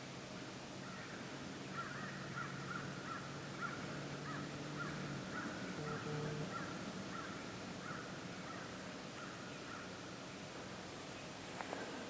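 Crows cawing in a long string of short, rapid calls, with a steady low hum underneath that stops about five seconds in.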